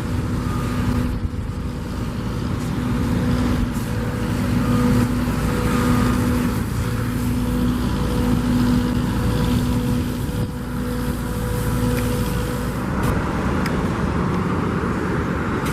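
A car driving at steady speed: continuous engine hum and road noise.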